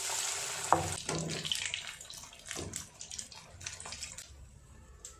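Batter-coated jackfruit pakoras deep-frying in hot oil as they go into the kadai: a dense sizzling hiss, loudest at first, that thins to scattered crackling toward the end. A sharp knock sounds a little under a second in.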